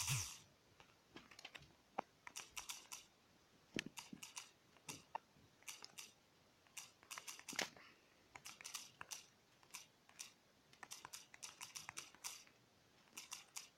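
Light, quick taps and clicks in bursts of several at a time, with short pauses between: fingers typing a message on a phone's touchscreen.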